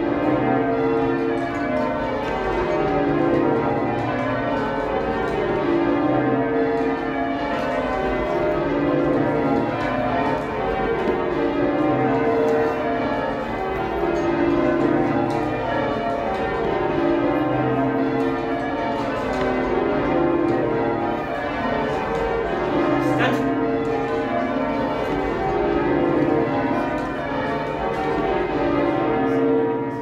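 York Minster's heavy ring of twelve church bells (tenor 59 cwt) being rung full circle. The bells strike one after another in continuous rows that step down in pitch from treble to tenor, with a deep, booming tone.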